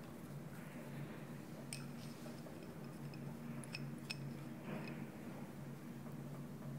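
Shredded mozzarella being sprinkled by hand onto rice in an earthenware hot pot, a soft patter with a few sharp light clicks around the middle as a small glass bowl is tipped against the pot. A steady low hum lies under it.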